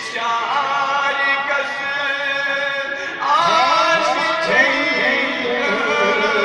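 Many men's voices chanting together in a religious chant, several melodic lines overlapping; the chanting grows louder about three seconds in.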